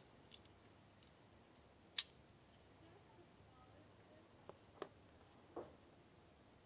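A few faint metallic clicks from the small steel parts of a Mauser C96 Broomhandle pistol being worked apart by hand as the recoil spring abutment comes out. The sharpest click comes about two seconds in, with two more close together later and then a duller knock.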